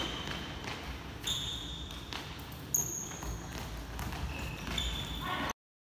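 Sneakers squeaking on an indoor court floor in short high squeals, with a futsal ball being kicked and struck several times during close one-on-one play. The sound cuts off abruptly near the end.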